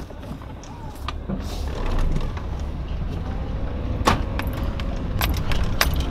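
Inside a car: a steady low engine rumble with a few sharp clicks as the gear lever and ignition key are handled, the loudest click about four seconds in.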